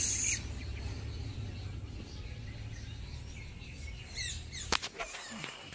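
Outdoor ambience: a steady low rumble, with a few short bird chirps about four seconds in and a couple of sharp clicks near the end.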